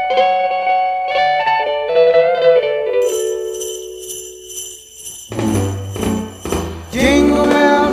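Christmas pop song backing track with jingle bells, an instrumental stretch between sung lines. A bass and fuller band come in about five seconds in.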